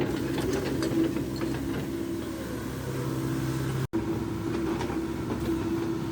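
Volvo EC55B compact excavator's diesel engine running steadily under hydraulic load during a function test, with a steady low drone. It cuts out for an instant near the middle.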